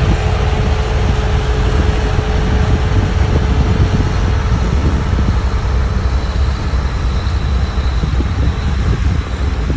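XCMG XS123PD single-drum road roller's diesel engine running steadily as the roller drives over loose soil, a deep continuous rumble with a thin steady hum over it.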